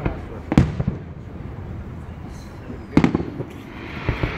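Fireworks going off: two sharp bangs about half a second apart, then another at about three seconds in, followed by a hiss that builds near the end with a further bang.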